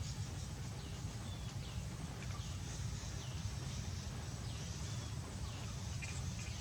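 Scattered short, high chirping calls, about one or two a second, over a steady low hum.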